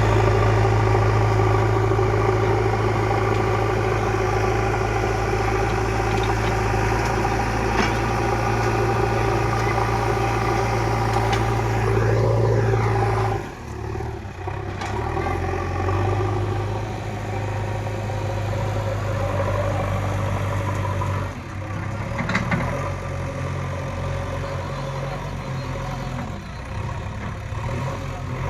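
JCB digger's diesel engine running steadily while digging. About halfway through it suddenly drops in level and pitch, then runs on somewhat quieter, with a couple of short knocks.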